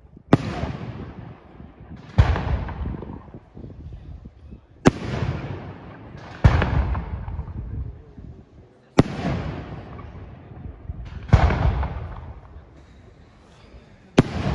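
Aerial firework shells bursting overhead: seven sharp bangs every two to three seconds, each trailing off in a rolling rumble that lasts a second or more.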